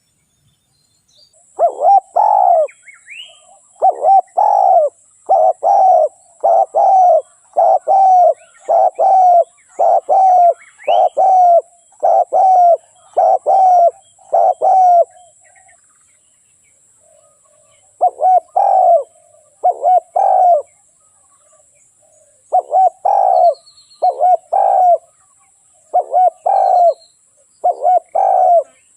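Spotted dove cooing: a long run of about a dozen evenly spaced coos, roughly one a second, then a pause of a few seconds before the cooing starts again. A couple of faint rising chirps are also heard early on.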